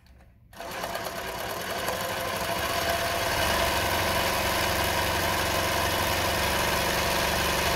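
Consew CN2053R-1A industrial zigzag sewing machine sewing through fabric. It starts about half a second in, picks up speed over the next couple of seconds, then runs at a steady speed.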